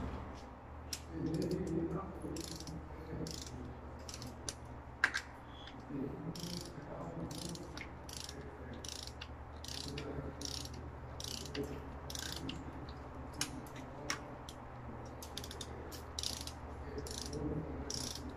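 Ratchet wrench clicking in short runs, about two a second, as it is swung back and forth to tighten a fitting on a high-voltage cable termination head. There are a few sharper single metallic clicks among them, over a steady low hum.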